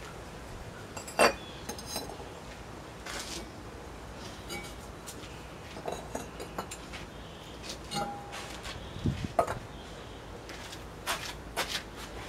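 Bisque-fired pottery clinking and knocking as pieces are lifted out of the kiln and set down on a hard surface. The clinks are scattered and irregular, with the loudest about a second in.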